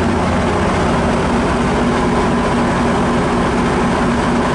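MARC commuter train's diesel locomotive running steadily: a loud, even engine hum with held low tones.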